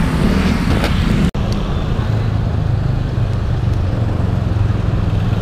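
Road traffic: motor vehicle engines running with a steady low rumble, the sound cutting out for an instant a little over a second in.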